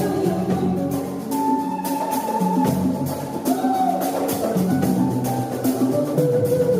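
Band music with a steady beat on drums and percussion under sustained instrumental notes.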